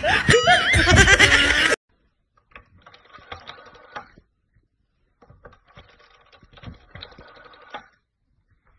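Loud laughter, cut off abruptly about two seconds in. Then an old rotary telephone's bell rings faintly with a rapid clatter, twice, each ring about two seconds long.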